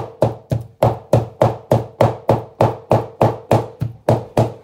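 A large kitchen knife chopping raw chicken against a plastic cutting board in a steady rhythm, about three sharp strikes a second: mincing chicken by hand into ground meat (keema).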